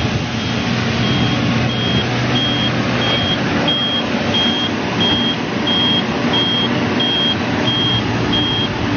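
New Holland E215B crawler excavator's diesel engine running steadily under load, with a high-pitched warning beeper starting about a second in and repeating about one and a half times a second.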